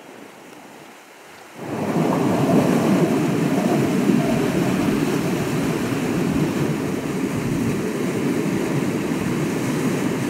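Water rushing and splashing as elephants swim through a flowing irrigation canal, a steady loud rush that sets in suddenly about one and a half seconds in.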